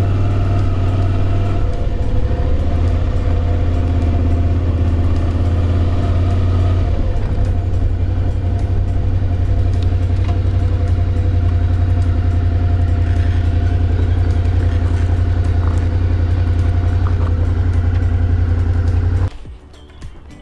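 Motorcycle engine running steadily while riding, with a deep low rumble, cutting off abruptly near the end.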